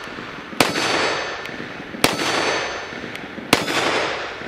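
Walther WMP semi-automatic pistol in .22 Magnum (.22 WMR) firing three shots about a second and a half apart. Each sharp report is followed by a long, fading echo.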